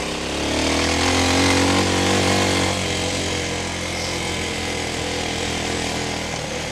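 TDR 300 dirt bike engine running under way, revving up about half a second in and then holding a steady pitch.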